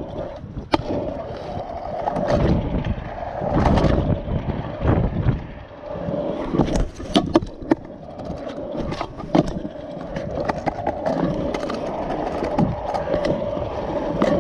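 Stunt scooter wheels rolling over concrete, a steady hum broken by sharp clacks and knocks as the scooter hits the ground and edges.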